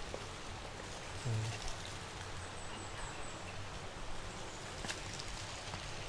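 Small waterfall and stream trickling down a rock face: a steady hiss of running water, the flow weak in the dry season. A brief low voice-like murmur comes about a second in.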